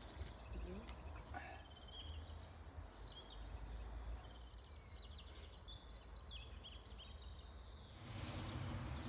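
Small birds chirping and twittering faintly outdoors over a low background rumble. About eight seconds in, a steady hiss comes in: pancake batter starting to sizzle in the hot pan on the wood stove.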